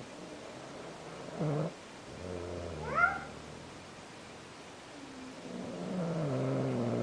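Loud snoring: a short snore, then a drawn-out one that ends in a sharp rising squeak, then a long droning snore that swells and falls in pitch before breaking off.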